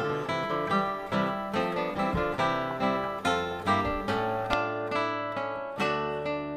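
Background music: an early English Renaissance instrumental piece played on plucked strings, with quick notes in several parts at once.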